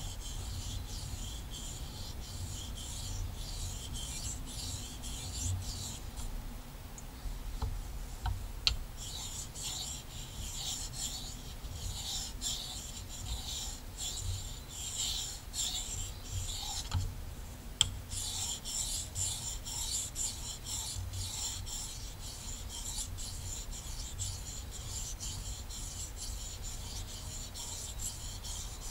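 Condor Nessmuk knife blade stroked back and forth across a whetstone to sharpen its convex edge: a steady rhythm of short, high scraping strokes. The strokes pause twice, about six seconds in and again about sixteen seconds in, and a sharp click sounds as each pause ends.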